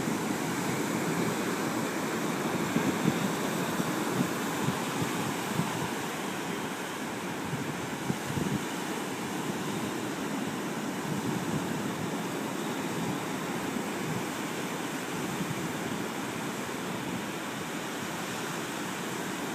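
Ocean surf washing steadily, with a few small knocks in the first half.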